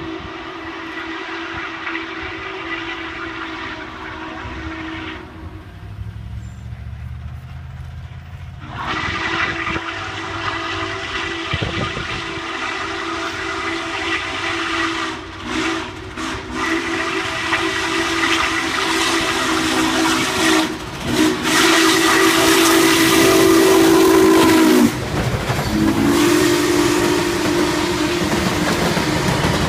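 Norfolk & Western 611, a 4-8-4 J Class steam locomotive, sounding its steam whistle in a series of long blasts. The first blast stops about five seconds in, and the whistle resumes a few seconds later. Later blasts are separated by short breaks and are loudest as the engine draws close, with steam hiss and the rumble of the passing train under them near the end.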